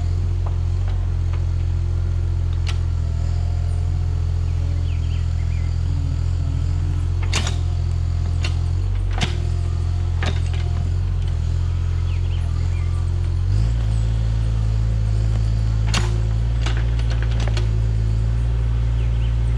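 Mini excavator engine running steadily under work, with sharp knocks every few seconds. The engine note shifts about two-thirds of the way through.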